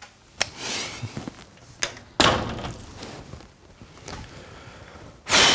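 An office door being pulled shut: handle and latch clicks, then the door closing with a sharp thud about two seconds in. A second loud burst of noise comes near the end.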